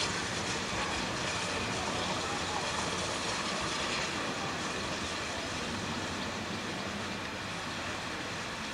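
Narrow-gauge steam locomotive moving slowly through a railway yard: a steady, even running noise with no distinct beats.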